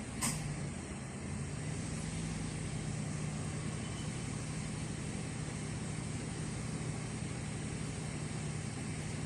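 2015 Subaru Impreza 1.6's flat-four engine idling. A sharp click comes a moment in, then the running note steps down slightly and grows a little louder: the idle sagging as the air-conditioning compressor engages, the fault of this car, whose AC is also not cooling. No whine from the compressor.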